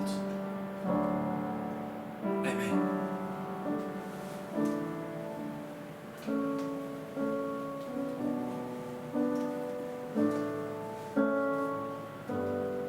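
Slow instrumental piano music: chords struck about once a second and left to fade.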